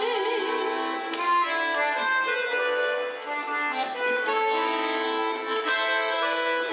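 Instrumental bar of a pop song, with a reedy accordion-like melody in sustained notes. A singer's held note with vibrato fades out in the first half-second.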